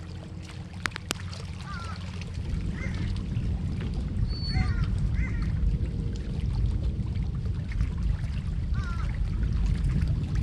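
A dog whining in short, high, squeaky whimpers every second or two, anxious and worked up at a bird in view, over a low rumbling noise that grows louder a couple of seconds in. Two sharp clicks come about a second in.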